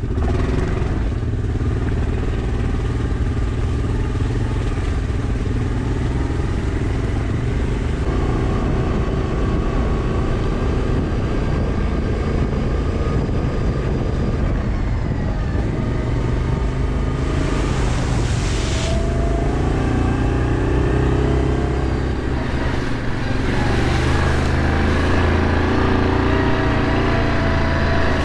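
Yamaha Kodiak ATV engine running steadily under way, with a brief rush of noise about two-thirds of the way through and a little more throttle near the end.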